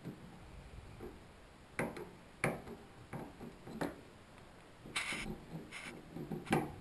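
Scattered light clicks and taps of a metal tool against a shower valve cartridge's brass stem, with a short scrape about five seconds in.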